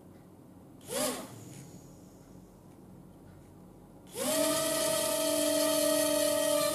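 Two small coreless DC motors with plastic propellers on a toy boat, wired straight to a battery: a brief whir as they spin for a moment about a second in, then they start at about four seconds, rising quickly in pitch, and run on with a steady high whine.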